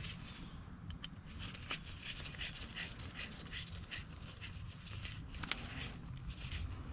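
Small clicks and scrapes of lock-cylinder parts being handled and fitted, with a steady low hum behind them; a quick run of scrapes comes in the middle.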